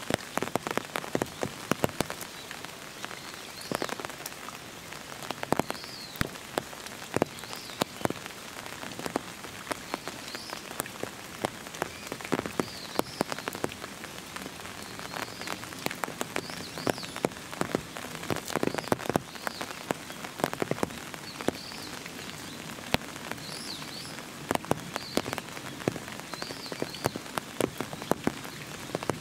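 Rain falling, with many irregular sharp drips and drops striking hard surfaces close by over a steady hiss. Faint high chirps come now and then.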